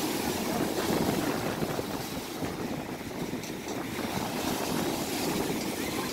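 Lake waves breaking and washing up around the waders' feet in the shallows, with wind rumbling on the microphone.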